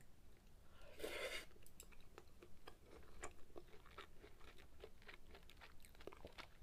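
Faint close-miked chewing of sukiyaki beef and tofu: many small wet clicks and crunches of the mouth, with a short rushing noise about a second in.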